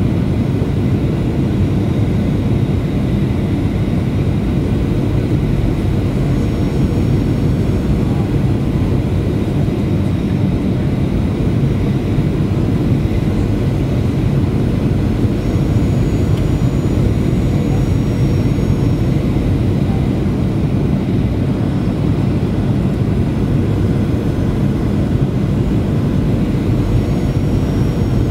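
Cabin noise inside a Boeing 737-800 on approach to land: its CFM56-7B jet engines and the airflow make a steady, loud low rumble. A faint high whine comes and goes a few times.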